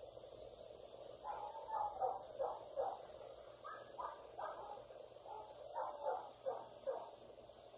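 A dog barking and yipping: short calls, each dropping in pitch, in quick runs of several at a time, starting about a second in.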